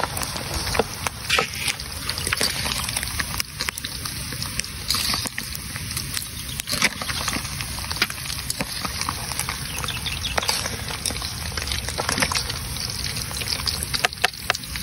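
Battered pieces deep-frying in a large metal pan of hot oil: steady sizzling and crackling, with frequent short clicks of metal tongs and fork against the pan.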